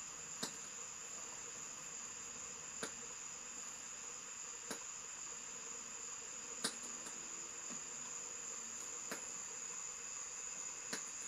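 OO gauge model train running slowly along the track, quiet: a faint steady high-pitched whine with a sharp click every two seconds or so.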